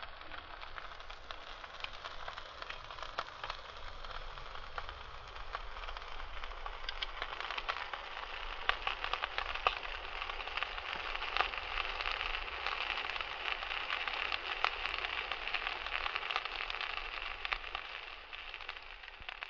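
Wood fire crackling: a steady hiss with frequent irregular sharp pops, fading out near the end.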